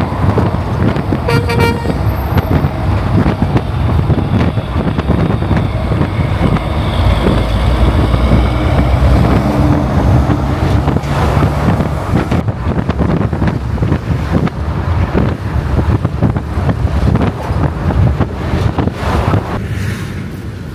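Heavy diesel trucks going by on a highway, engines and tyres running close by, with a short horn toot about a second and a half in. The sound drops to a lower rumble near the end.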